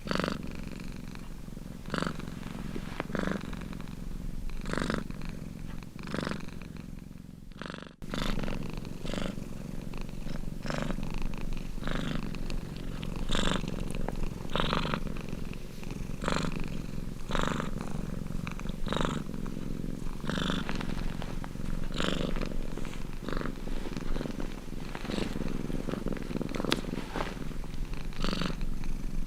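Domestic cat purring steadily, the purr swelling in a regular pulse with each breath, about every second and a half. The sound drops out briefly about eight seconds in and picks up again.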